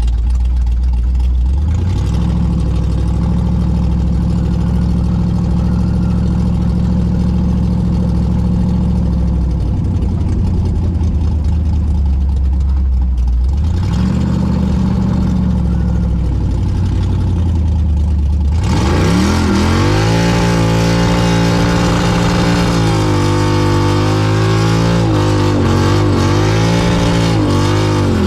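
Texas Speed 416-cubic-inch LS3 V8 running while the car is driven: a steady engine note for most of it, shifting in pitch a couple of times, then about two-thirds of the way through it turns sharply louder in the upper range, with the revs rising and falling several times as it accelerates.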